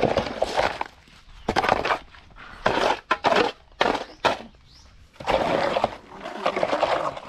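Shovels scraping and scooping through a sand, gravel and cement mix, in uneven strokes of about half a second to two seconds each.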